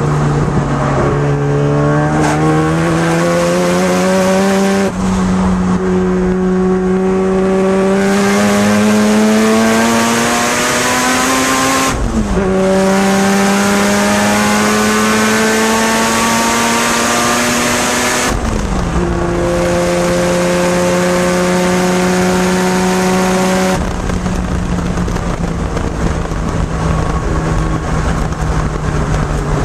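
Turbocharged 13B twin-rotor engine of a Mazda RX7 FC3S heard from inside the cabin under hard acceleration on track. Its pitch climbs in long pulls and drops sharply about five, twelve and eighteen seconds in as the gears change. It then holds steady and steps down to a lower, even note about twenty-four seconds in as the throttle eases.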